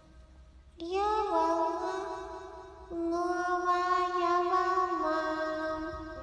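A voice holding long, steady, chant-like notes in about three drawn-out phrases, beginning about a second in.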